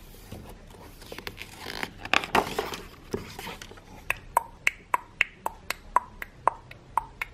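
A page of a hardcover picture book turned with a paper rustle about two to three seconds in. Then, from about four seconds in, even tick-tock clicks, about three or four a second, alternating higher and lower: tongue clicks imitating a clock ticking.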